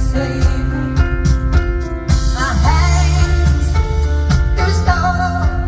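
Live arena concert music heard from the audience: a female lead vocal holding long notes with vibrato over a full band with bass and steady drum beats.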